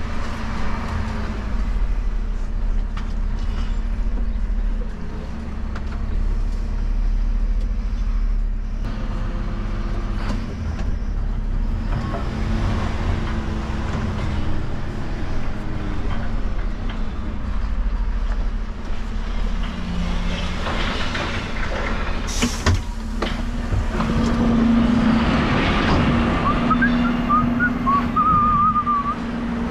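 Bin lorry's diesel engine running as the truck drives slowly, heard from inside the cab. Near the end there is a sharp click, followed by a steady hum and a brief high squeal.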